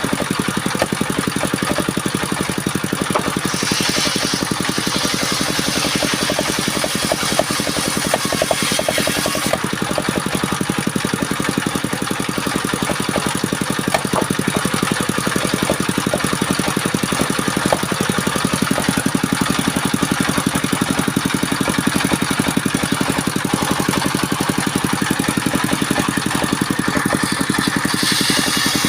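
Engine of a wood-sawing machine running steadily at an even speed. A brighter hiss joins it from about four seconds to nine seconds in, and again near the end.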